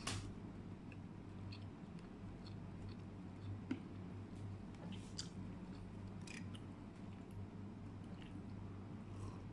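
Quiet chewing of a mouthful of chicken biryani and rice, with scattered soft mouth clicks, over a steady low hum.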